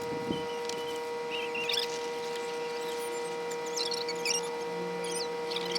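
Water running through an unstarted pressure washer's pump and spray wand to purge trapped air: a steady hum with scattered short high squeaks and sputters.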